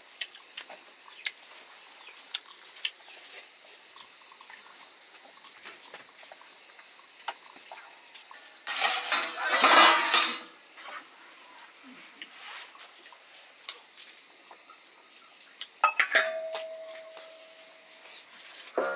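Stainless steel plates and bowls being handled and set down on a floor, clinking. There is a louder clatter about halfway through, and near the end a knock leaves a plate ringing on for a couple of seconds.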